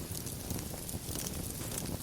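Wood fire burning in a fireplace: a steady low rumble of flames with soft, small crackles and no big pop.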